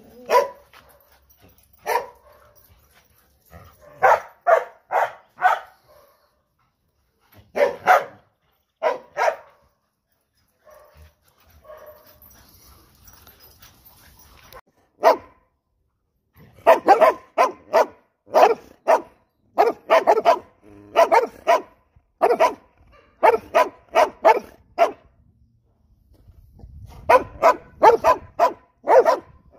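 Dogs barking in runs of short barks, with a lull of a few seconds in the middle, then barking almost without a break through the second half.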